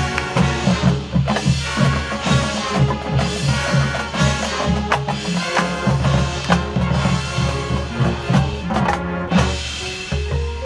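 High school marching band playing its field show, with the drumline's bass and snare drums driving a fast, steady beat under the winds. Near the end the drums thin out and separate pitched notes step upward.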